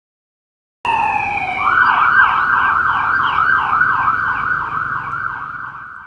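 Police car siren passing by: it starts suddenly about a second in with a short falling wail, then switches to a fast yelp rising and falling about three times a second over a low vehicle rumble. It fades as it goes past.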